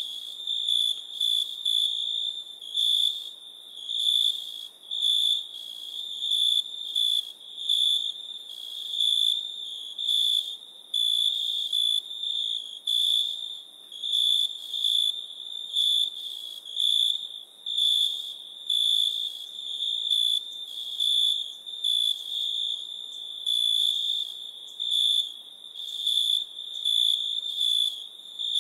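Insects trilling: one shrill, continuous high note that swells and eases in uneven pulses.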